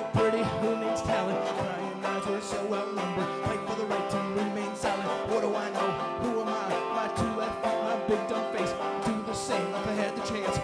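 Live band music: banjo and guitar playing an instrumental passage of a song.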